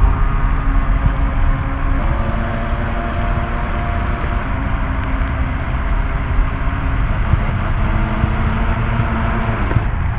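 Battery-powered electric motor of a Syma Double Horse 7000 RC speed boat running at speed, its steady whine shifting pitch about two seconds in, over a heavy low rumble.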